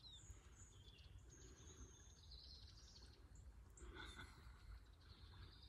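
Near silence: quiet outdoor ambience with a low steady rumble and a few faint, high-pitched bird calls.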